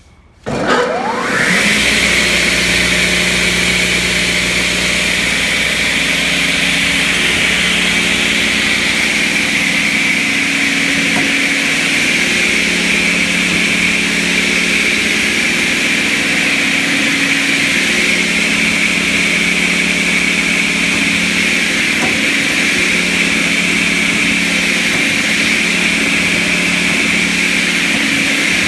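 A 10 hp Baldor three-phase electric motor switches on about half a second in and spins the 19.5-inch saw blade up to speed in about a second, the pitch rising. It then runs steadily with a high whine.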